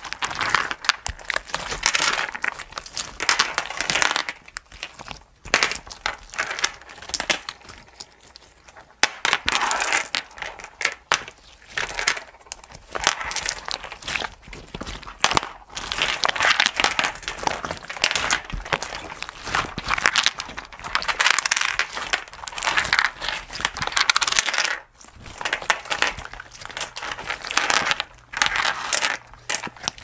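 Homemade green slime mixed with flat glass gems being squeezed and kneaded by hand: wet squelching and crackling in irregular bursts, with sharp clicks among them and short pauses between squeezes.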